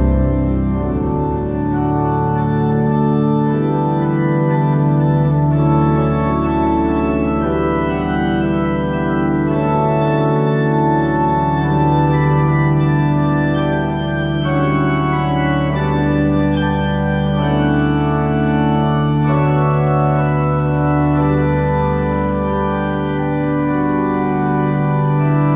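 Church organ playing a slow piece of sustained chords over a long-held low bass note.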